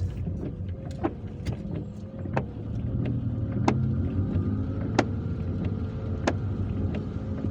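Old windscreen wipers sweeping across a rain-wet windscreen, heard from inside the car over the rumble of road and engine: a sharp short screech at each stroke, about every second and a half. The screeching comes from the wiper blades being old and worn.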